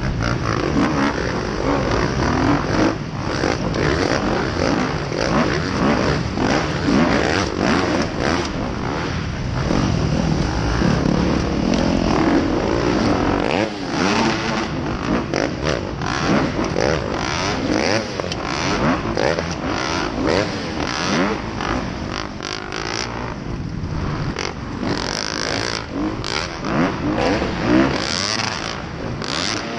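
2016 Kawasaki KX250F dirt bike's single-cylinder four-stroke engine racing flat out, its pitch constantly rising and falling as it revs up, shifts and backs off through turns and jumps.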